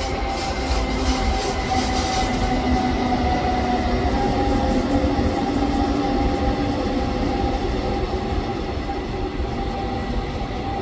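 Freight train hauling an eight-car electric multiple-unit trainset rolling past, with a steady rumble of wheels on rail. The wheels click rapidly over rail joints for the first couple of seconds, and a faint steady tone runs through.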